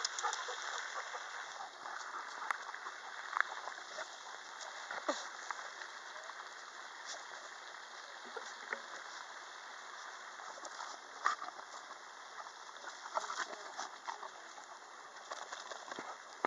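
Steady outdoor hiss with scattered light clicks and rustles.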